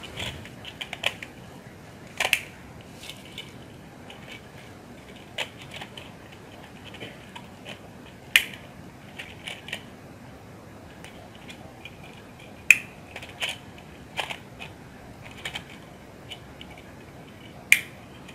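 Plastic switch modules clicking and snapping as they are pressed and seated into a plastic switchboard plate by hand. Irregular small clicks throughout, with a few sharper snaps, the loudest about a third of the way in, two-thirds of the way in and near the end.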